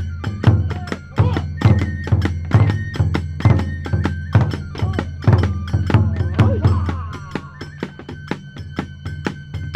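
Kagura hayashi music for a battle dance: fast, driving drum beats with ringing clashes of small hand cymbals and a high note held on a flute. The heavy drum layer falls back about seven seconds in, leaving lighter strikes.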